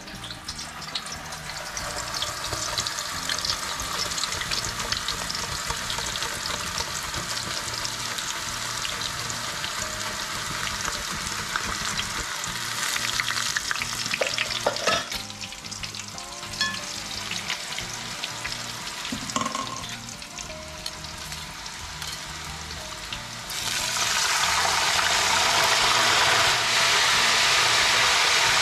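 Raw banana slices deep-frying in a kadhai of hot oil, with a dense crackling sizzle. The oil is still bubbling hard, the sign that the chips are not yet done and crisp. Near the end the sizzle turns louder and steadier.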